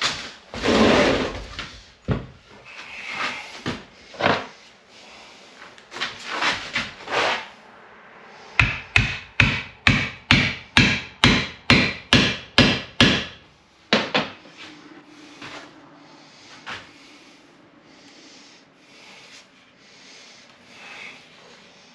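Sledgehammer striking the butt end of a wooden axe handle about a dozen times in quick, even succession, about two and a half blows a second, driving the axe head down onto the handle for a trial fit. Irregular knocks and wood rubbing come before the blows.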